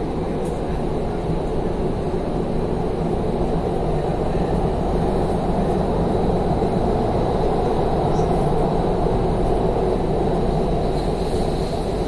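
Doha Metro train running at speed through a tunnel, heard from inside the front car: a steady rumble of wheels on rails and running gear, with a faint steady high whine above it.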